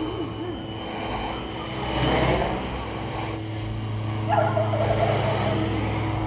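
Funcopter electric RC helicopter in flight: a steady hum from its motor and belt-driven rotors, swelling briefly about two seconds in. Short whining calls like a dog's come near the start and again a little past four seconds.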